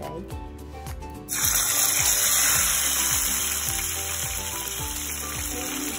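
Hot cooking oil in a nonstick wok sizzling as a raw whole chicken is laid into it to fry. The sizzle starts suddenly about a second in, is loudest soon after, and eases a little.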